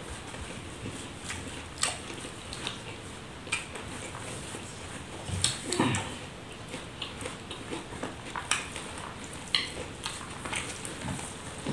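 Eating rice by hand: fingers squishing and mixing rice on a banana leaf, with chewing and lip-smacking. It comes as a string of short, uneven wet clicks and rustles, loudest about halfway through.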